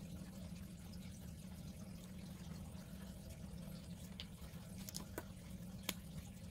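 Steady low room hum with a few light, sharp plastic clicks in the second half as fineliner pens are capped and uncapped.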